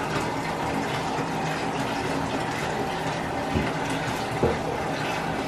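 Water running steadily from the tap into a partly filled bathtub.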